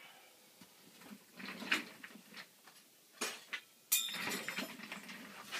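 Clatter of objects being handled and set down on a workbench: a few knocks and scrapes, and a sharp ringing clink about four seconds in.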